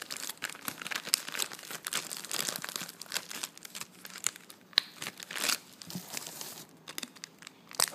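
Thin clear plastic bag crinkling and crackling in a dense run of small crackles as it is handled and pulled open by hand.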